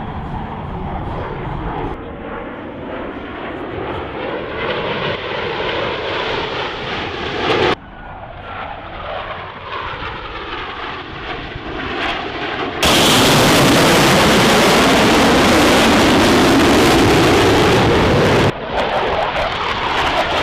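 Blue Angels F/A-18 Super Hornet jets flying past overhead: steady jet engine noise with slowly sweeping tones as they pass. The sound cuts off abruptly about eight seconds in. It comes back and swells to a much louder jet pass from about thirteen to eighteen seconds in, which also cuts off suddenly.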